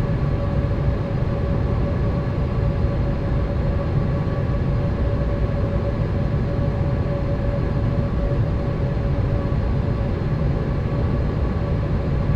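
Boeing 787 cabin noise in flight: a steady low rumble of engines and airflow with a constant hum tone over it.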